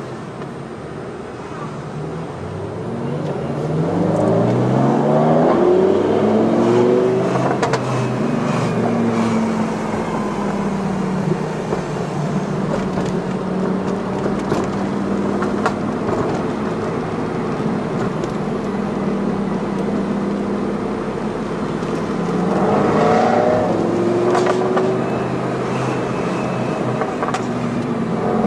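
High-performance car engines accelerating hard, the pitch climbing through the revs a few seconds in, then holding a steady cruising note before climbing again twice near the end.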